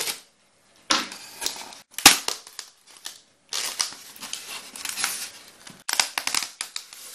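Polystyrene foam packing box being handled and its lid pulled off: foam rubbing and scraping on foam in scratchy bursts, with a sharp click about two seconds in and a longer stretch of scraping in the second half.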